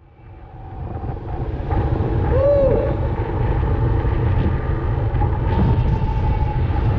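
Riding noise on a Honda Super Dream motorbike in town traffic: wind rushing over the microphone and a steady low engine and road rumble, fading in over the first two seconds.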